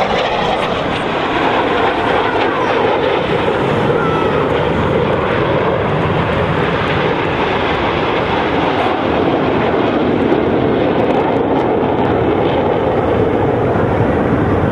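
Formation of Aermacchi MB-339 jet trainers flying overhead, a steady jet engine noise.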